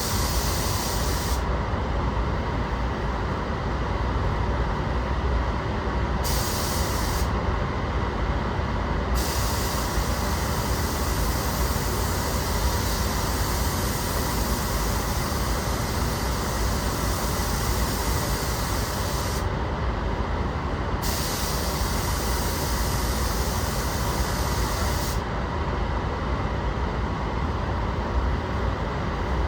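Paint spray gun hissing as it lays sealer onto car body panels, in on-off passes: two short bursts, then a long pass of about ten seconds and a shorter one. Under it, the spray booth's ventilation runs with a steady loud rush.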